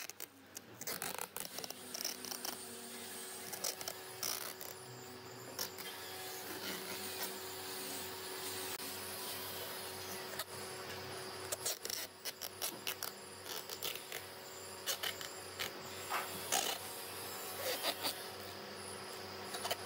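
A woodworking power tool running steadily, with scattered sharp clicks and rubbing from work on the piece.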